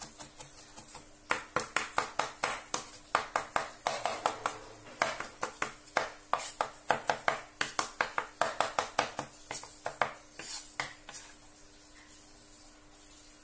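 Kitchen knife rapidly chopping and mincing on a wooden cutting board, a quick run of sharp knocks about four a second that stops about eleven seconds in.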